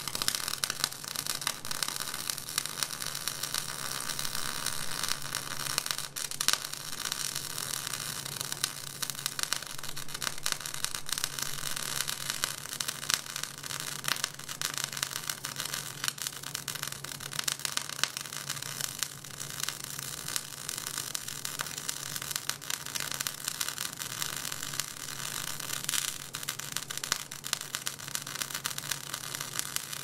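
Electric arc welding on a trailer hitch: a continuous crackling sizzle full of tiny pops over a steady low hum.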